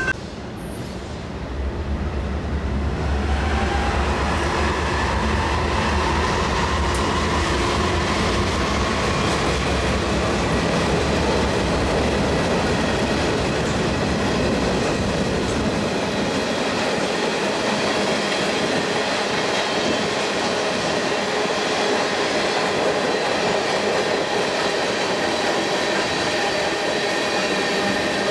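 Freight train cars rolling past, a steady rattle and clatter of steel wheels on rail. A deep rumble underneath fades out about halfway through.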